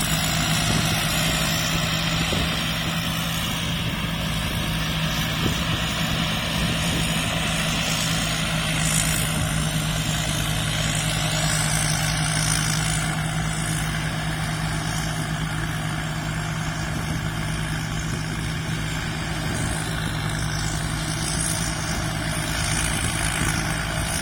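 Rice combine harvester's engine running steadily at an even speed, a constant low drone with no changes in pitch.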